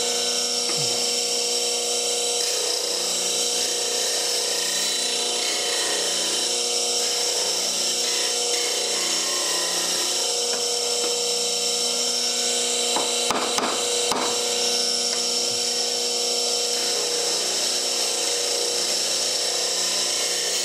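8-inch slow-speed bench grinder running steadily while the bevel of a skew chisel is ground on the wheel: a constant motor hum under an even hiss of steel being ground. A few light knocks about two-thirds of the way through.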